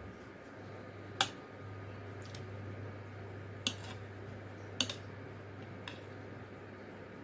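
A metal spoon clinking against a ceramic plate while scooping rice: three sharp clinks spread over a few seconds, with a couple of fainter taps, over a low steady hum.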